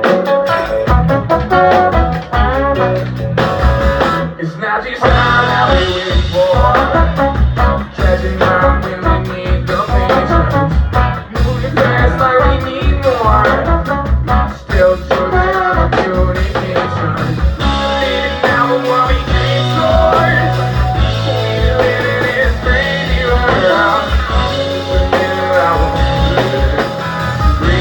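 A rock band playing live: drums, bass and electric guitar, with singing over the top.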